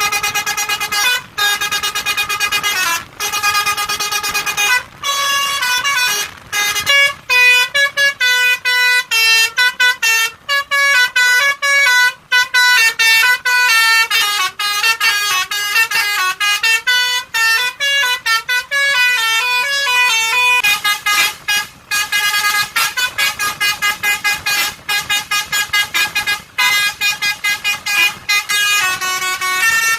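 Musical vehicle horn playing a tune: a long run of horn notes stepping up and down in pitch, broken by many short gaps, quickest in the middle.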